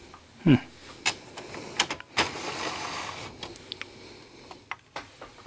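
Plastic front output tray of an Epson XP-600 inkjet printer being pushed by hand against its resistance shaft: a few clicks, then a sliding rasp of about two and a half seconds with faint squeaks. The tray is not motorized.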